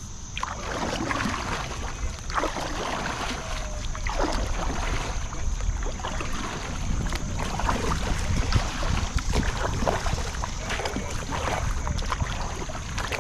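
Water splashing around a fishing kayak as it moves, in uneven splashes every second or two, over a low rumble of wind on the microphone.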